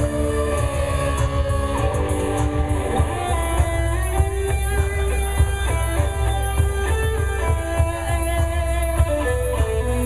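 Live industrial electronica: electric guitar played over synthesizer, with long held notes above a heavy, steady bass and a regular beat.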